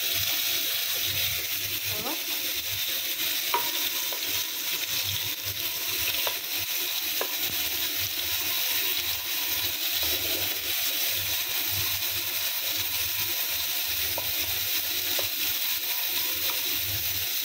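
Onion, green chilli and tomato paste with nigella seeds frying in hot oil in a kadai: a steady sizzle with occasional small pops, while a wooden spatula stirs and scrapes the pan.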